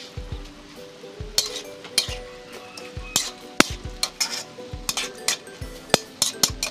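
Spatula stir-frying cabbage and carrots in a metal wok: irregular clinks and scrapes of the spatula against the pan over a light sizzle of frying.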